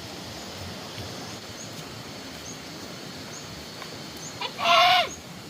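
A cat meowing once near the end, a single call that falls in pitch at its close, over steady outdoor background noise with a faint high chirp repeating about once a second.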